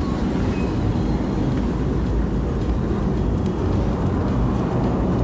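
Steady low rumble of a running vehicle, engine and road noise.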